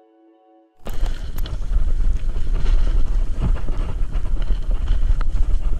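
Quiet held music notes end, and about a second in a loud, steady rush of wind buffeting the microphone of a moving bicycle cuts in, with a few sharp ticks.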